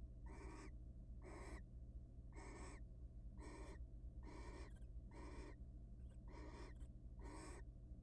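Barn owl giving its rasping, hissing snore call over and over, each call short and coming about once a second.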